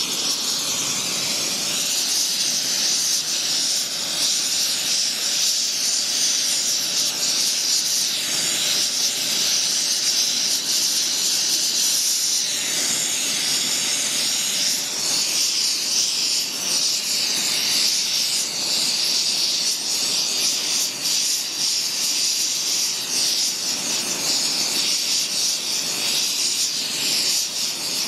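Oxy-propane torch burning with a steady hiss as it heats thick-walled copper pipe for a braze repair.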